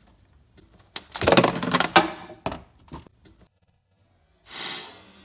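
Metal clicks, rattling and crackling as the negative terminal clamp is pushed onto the BMW i3's 12-volt battery post and sparks on contact. This spark on first connecting the second terminal is normal. A short hiss-like burst of noise follows near the end.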